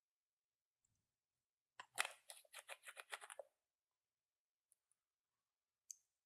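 Clear slime being worked by hand: a short run of quick crackling clicks, about ten in a second and a half, starting about two seconds in, then a few faint ticks.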